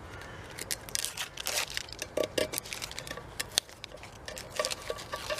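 Paper label being peeled and torn off a thin tin can, crinkling with many small crackles and clicks.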